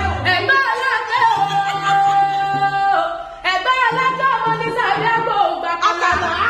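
A voice singing long held notes over music, with a brief pause about three and a half seconds in.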